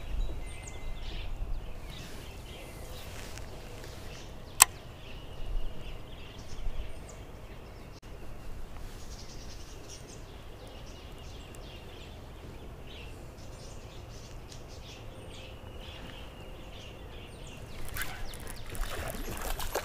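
Outdoor lakeside ambience: a steady low rumble with faint bird chirps, one sharp click about four and a half seconds in, and splashing and rustling near the end as a small bass is reeled to the surface.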